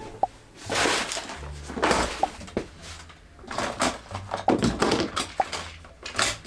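Rustling and shuffling of a person getting up and moving about a small room, in several short bursts, with a few brief high squeaks.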